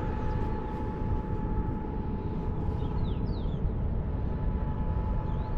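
Wind buffeting the microphone, with the steady whine of a water pump that runs continuously underneath it, and a few short bird chirps about three seconds in.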